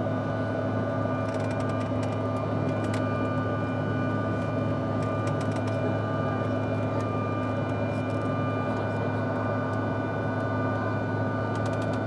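Steady cabin noise inside a climbing jet airliner: the engines' even drone, with several steady tones over the air noise, and a few faint clicks.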